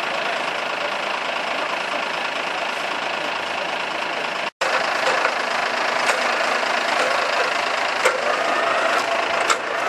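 Engine running steadily, cut off for a split second about halfway, with a few light clicks and knocks afterwards.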